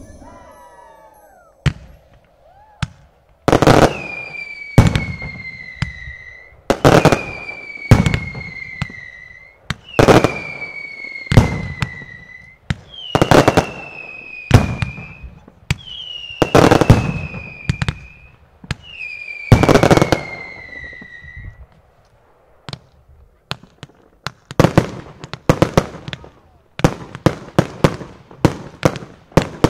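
Fireworks display: a run of loud bangs about every second and a half, each followed by a whistle that falls slightly in pitch. Near the end, a rapid, dense string of shots.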